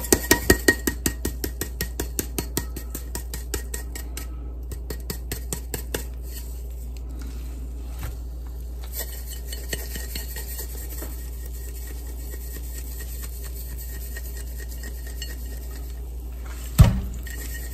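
Stainless steel seasoning shaker shaken over meat in a slow cooker pot, about four rattling shakes a second for the first few seconds, then scattered light taps. A single loud thump near the end.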